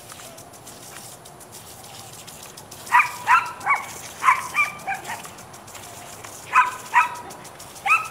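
A dog barking in short, high-pitched yaps, about ten in all. There is a quick run of barks starting about three seconds in, then two more, and one near the end.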